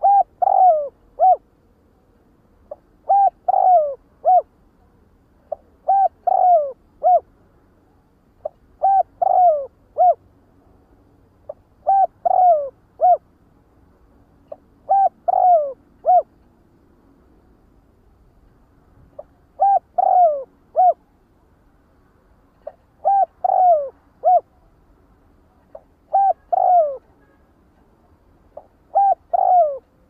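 Spotted dove cooing: a short phrase of a few coos repeated about every three seconds, with one longer pause past the middle.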